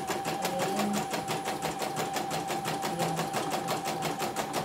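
CNY computerized embroidery machine stitching a design, its needle ticking at an even rate of about seven stitches a second over a steady motor whine. It is running smoothly again after a total jam was repaired. The whine stops near the end.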